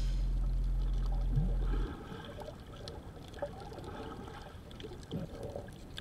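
A low held note of background music cuts off suddenly about two seconds in, leaving faint underwater water sound picked up through an action camera's waterproof housing, with small scattered clicks and bubbly ticks.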